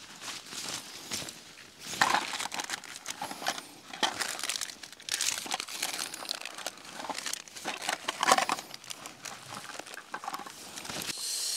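Black fabric bag rustling and crinkling in irregular bursts as it is handled and rummaged through, with a steady hiss starting near the end.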